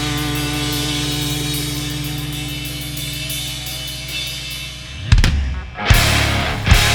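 Live rock band: a held chord rings and slowly fades, then about five seconds in the drum kit comes in with hard hits and cymbal crashes and the band plays loudly.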